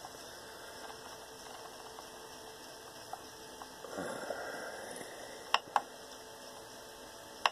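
Rotary knob of a 3D printer's LCD controller being turned and pressed through its menus: a few faint clicks, then two sharp clicks in quick succession about five and a half seconds in.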